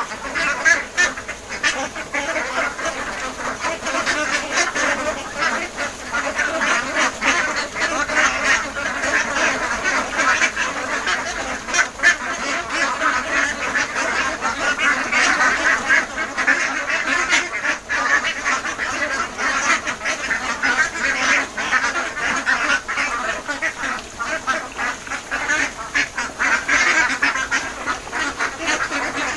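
A flock of Khaki Campbell ducks quacking and chattering continuously, many calls overlapping.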